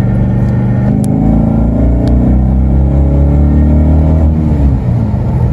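V8 engine and exhaust of a V8-swapped Audi B5 A4 accelerating in third gear from about 3000 rpm, the pitch climbing steadily for about three seconds. Near the end the pitch drops away.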